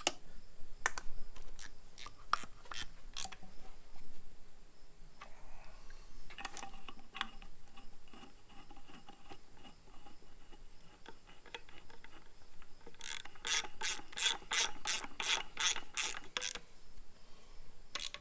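Ratchet wrench clicking as 14 mm bolts are run down tight. Scattered single clicks at first, then a quick even run of about four clicks a second near the end.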